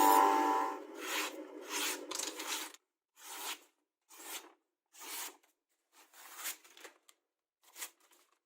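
Background music fading out, then a run of short scraping or rubbing strokes, about one a second, with brief silences between them.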